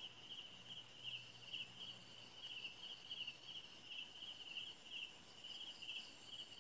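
Faint crickets chirping in steady pulsed trills, about two a second.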